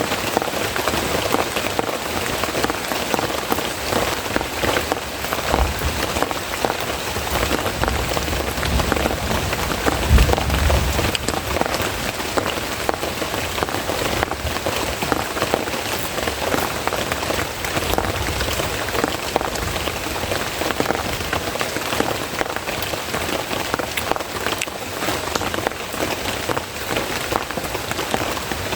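Steady rain falling, a dense hiss with many individual drop hits. A brief low rumble comes about ten seconds in.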